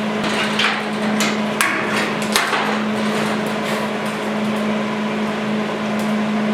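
Hammer tapping on the Bronco's sheet-metal body panel: a handful of sharp, irregular blows, most in the first half, over a steady low hum.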